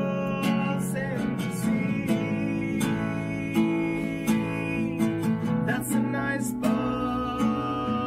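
Acoustic guitar playing an instrumental passage, chords and notes plucked in a steady rhythm and left ringing.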